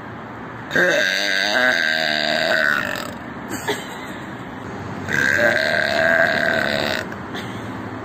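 A young woman burping loudly twice, each burp about two seconds long; the first wavers in pitch, the second comes a couple of seconds after it.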